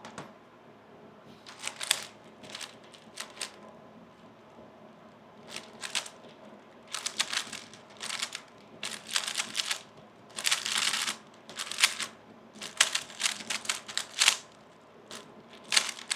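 3x3 speedcube being turned fast by hand: runs of rapid plastic clicks as the layers snap round, broken by short pauses, with a quieter gap about four seconds in and denser turning after it.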